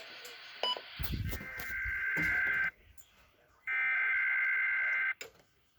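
Emergency Alert System SAME data bursts: the buzzy two-tone warble of the digital code that frames an EAS alert, heard twice, each burst about a second and a half long with about a second between them. A click and faint radio noise come before the first burst.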